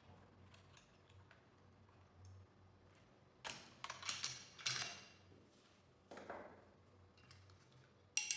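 Small side cutters clicking faintly as they snip at the fastenings of an aluminium yard sign's stakes. Then, from about a third of the way in, loud scraping and rattling as the stakes are worked free of the sign, ending in one sharp click near the end.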